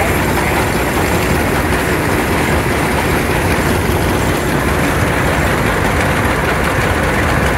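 Heavy farm engines running steadily at close range: a Keck-Gonnerman steam traction engine alongside and an old tractor's engine, with no letup.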